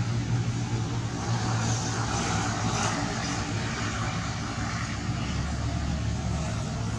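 Steady low hum of a motor engine running, with a swell of hiss about two seconds in and a deeper rumble joining about five seconds in.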